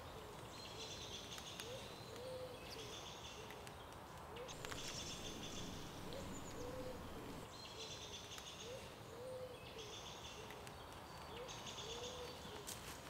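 Faint woodland birdsong: one bird repeats short, low cooing notes about once a second, while other birds chirp higher in short phrases.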